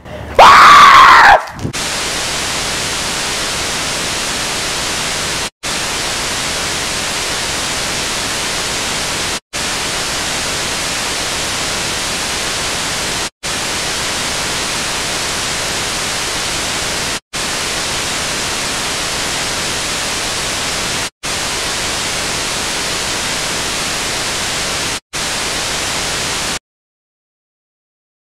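A brief, very loud high-pitched shriek, sliding down in pitch, then a steady hiss of video-tape static cut by short dropouts about every four seconds. The static stops suddenly near the end into silence.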